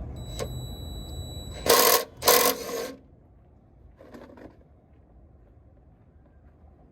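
Ratchet wrench clicking in two quick loud bursts as it works the 9/16 oil drain plug loose on a 1994 Chevy C2500's oil pan, followed by a faint metallic rattle.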